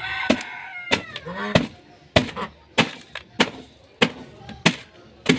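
Dry bread being snapped and broken into pieces: sharp, dry cracks about every half second, around nine in all. During the first second and a half a falling, honk-like pitched sound runs underneath the cracks.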